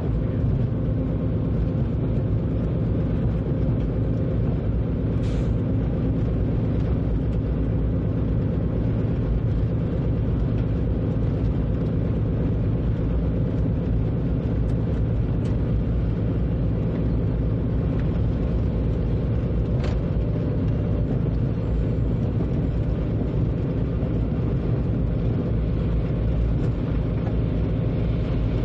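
Steady low drone and rumble of a train running along the track, heard from inside the locomotive's driver's cab, with brief clicks about five seconds in and again about twenty seconds in.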